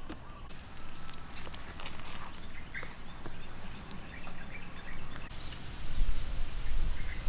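Poultry calling on and off in the background. Near the end comes rustling and handling noise as a crispy breaded fried chicken leg is broken open.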